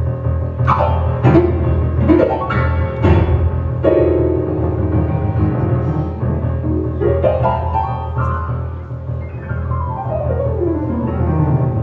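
Grand piano played solo in an instrumental passage: struck chords and quick runs, ending with a long run down the keyboard.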